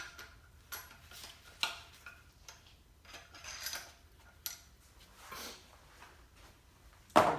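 Scattered light metallic clicks and clinks with a few short scrapes as hand tools work on engine parts, then one loud clank just before the end.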